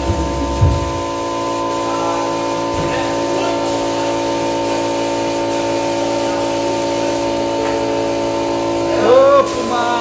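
Steady hiss of a spray gun applying primer, with a steady hum under it. A person's voice is heard briefly near the end.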